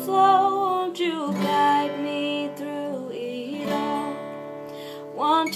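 A woman singing long held notes to a strummed acoustic guitar, with a new sung phrase rising in near the end.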